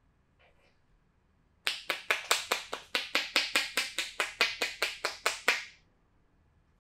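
Percussive hand massage: a rapid run of about twenty sharp claps or slaps of the masseur's hands, about five a second. It starts nearly two seconds in and stops near six seconds.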